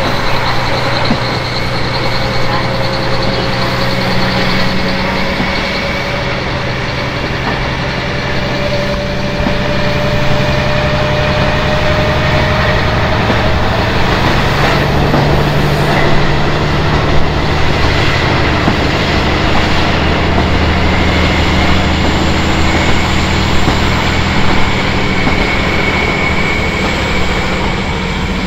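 KiHa 40 diesel railcar running, heard from inside the car: a steady diesel engine drone over wheel and rail noise. A few tones rise slowly in pitch as the train gathers speed.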